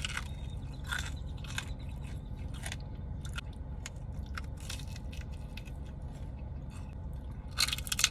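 Close-up crunching and chewing of a fried pork rind (chicharrón): irregular crisp crunches, with a louder cluster of crunches near the end, over a steady low hum.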